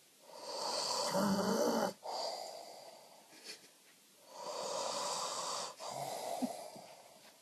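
A sleeping man snoring: two slow breaths, each a loud, noisy inhale followed by a softer exhale. The first inhale ends in a low-pitched snore.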